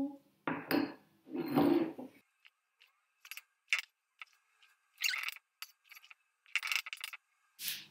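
Fast-forwarded sound of a spoon scraping and clinking against a mixing bowl and small dessert pots as the whipped dessert is spooned out: a quick, irregular run of short, sharp clicks and scrapes, thin and high because the audio is sped up.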